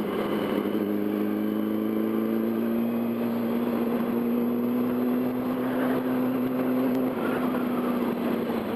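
Yamaha R1 motorcycle engine running at low revs in slow city riding, its steady note rising slowly in pitch, then easing about seven seconds in, over wind and road noise.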